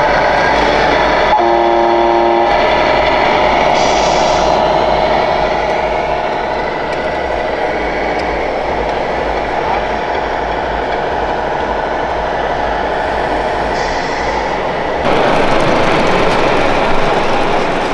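RC scale truck sound modules: a diesel engine note running steadily, with one blast of a multi-tone air horn lasting about a second, starting a little over a second in.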